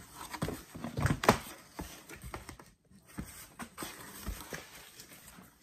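Card-collector binder albums being handled in an open cardboard box: scraping, rustling and knocks as one album is lifted out, the loudest knock about a second in.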